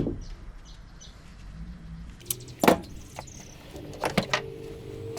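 A few sharp knocks and clicks of hard objects being handled, the loudest about two and a half seconds in, with a steady hum coming in near the end.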